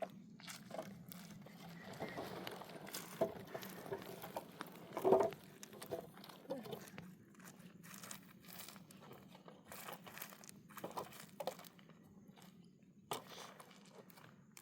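Crinkling, crunching handling noises made of many scattered short clicks, with a brief pitched, voice-like sound about five seconds in.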